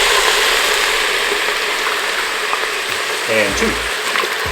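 Meat sauce of browned ground beef, onion and marinara sizzling in an Instant Pot's inner pot on the sauté setting: a steady frying hiss, loudest at first and easing off slowly.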